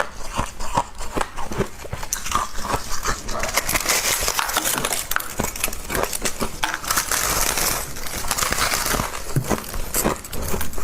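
Close-up chewing and crunching of a mouthful of soft frost: a rapid run of crisp crunches and crackles, growing denser and hissier through the middle.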